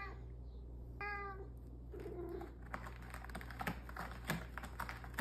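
Domestic cat giving a short meow about a second in, then a run of quick, irregular scratching clicks of claws on a corrugated cardboard scratcher pad.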